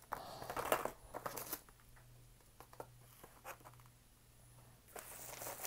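Packaging and bubble wrap rustling and crinkling as boxed diecast models are handled. A burst of rustling at the start gives way to a quieter stretch with scattered small clicks and taps, and crinkling builds again near the end. A faint steady low hum sits underneath.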